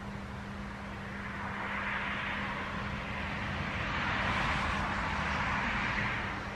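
Wind gusting through a birch tree, its leaves rustling in a hiss that builds over a few seconds and dies back near the end.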